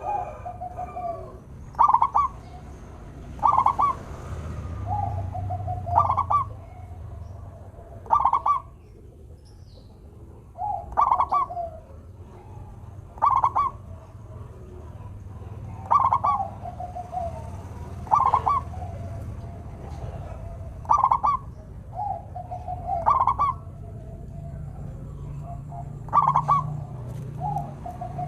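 Zebra dove (perkutut) cooing: short, stuttering phrases of clipped high notes, repeated every two seconds or so, with a steady low rumble underneath.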